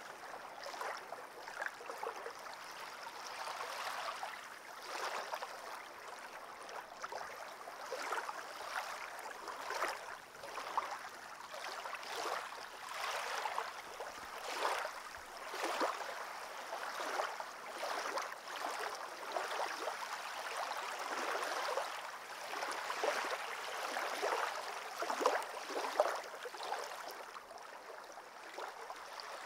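Shallow water lapping at a stony lake shore: a steady run of small, irregular splashes and trickles.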